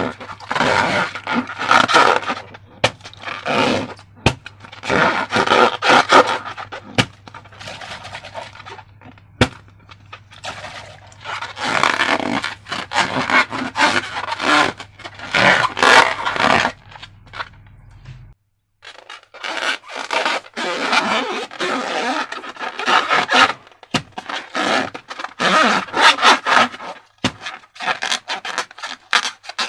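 Slime being worked by hand and tool: repeated wet scraping and squishing strokes in bursts of a second or two, with short pauses between.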